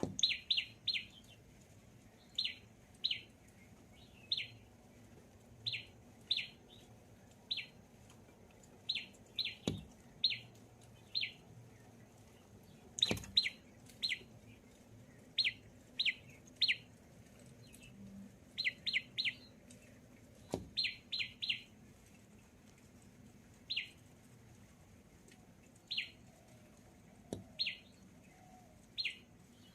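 A small bird chirping over and over: short, high chirps that drop quickly in pitch, coming singly or in quick runs of two to four. A few sharp clicks come between them.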